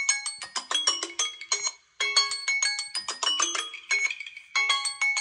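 Samsung phones and a Samsung tablet sounding their alarm/timer ringtones together: overlapping bell-like chime melodies, the phrases repeating with short gaps about every two and a half seconds.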